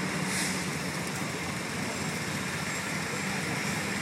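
Slow-moving road vehicles passing close by: a steady engine rumble with a low hum, as a fire engine draws near behind a passenger car.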